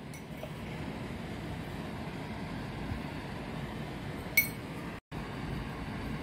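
A small glass seasoning container clinks once, sharply and ringing, about four seconds in, while salt goes into a simmering cream sauce. Under it runs a steady low kitchen noise.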